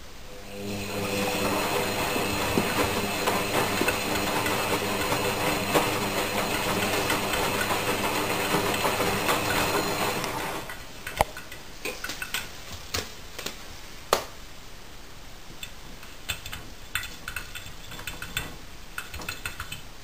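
Front-loading washing machine running its wash cycle: the drum motor hums steadily for about ten seconds, then stops for the pause in the tumble. During the pause there are scattered light taps and clicks from a cat pawing at the glass door.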